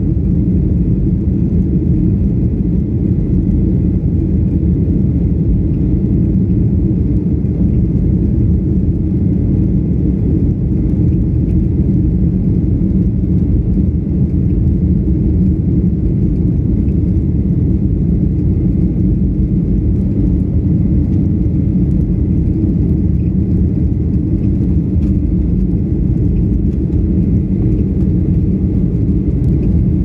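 Steady low rumble of an airliner's jet engines and rushing airflow heard from inside the passenger cabin in flight, unchanging throughout.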